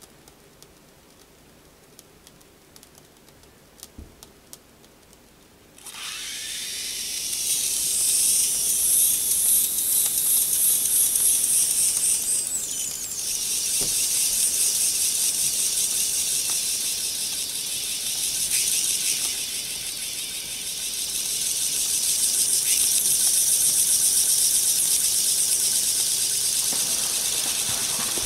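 Microcosm T1B Hero's engine model: after a few faint ticks, steam suddenly starts hissing from its jet arms about six seconds in as the water in the brass boiler comes to the boil, then keeps up a steady, loud high hiss.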